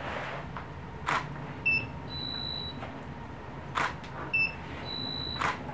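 Camera shutter firing three times. About half a second after each shot, studio strobes give a short chirp and then a steady high beep, the ready signal of a flash that has recycled.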